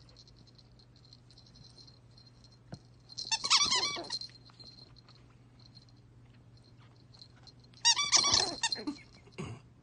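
Plastic squeaky dog toy squeezed repeatedly in a Yorkshire terrier puppy's jaws: two bursts of rapid high squeaks, about three seconds in and again about eight seconds in, with faint ticking between.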